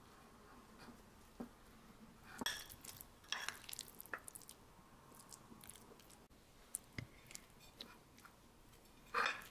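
Quiet eating sounds: chewing, with small clicks of utensils against a dish, and a brief louder noise near the end.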